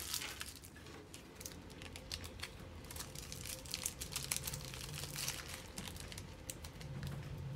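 Small clear plastic Ziploc bag crinkling and rustling in the fingers as loose diamond painting drills are put into it, with scattered small irregular crackles.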